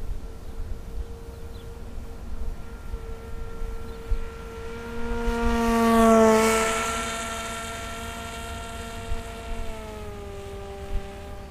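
Radio-controlled model airplane's propeller drone passing close by. It swells to its loudest about six seconds in, drops in pitch as the plane goes past, then fades and drops in pitch again near the end.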